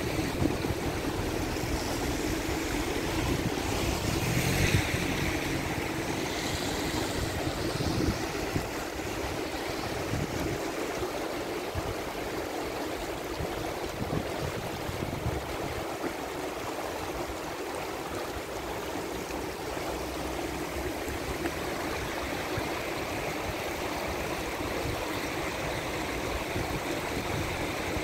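Muddy floodwater from heavy rain rushing down a concrete drainage channel in a steady wash of noise, with wind rumbling on the microphone at times.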